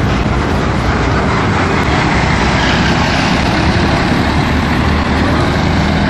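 Diesel engines of large coach buses running as they drive past at close range and pull away, a steady deep engine noise.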